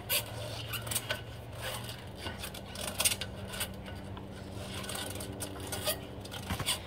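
Irregular scrapes and rubs of hands and sneakers gripping and sliding on playground climbing poles, with scuffs on wood-chip ground.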